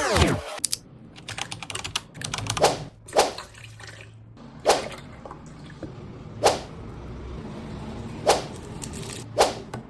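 Kitchen preparation sounds for a blender cake batter: a run of small clicks, then sharp taps and clinks about every one to two seconds, with faint pouring and dripping between them.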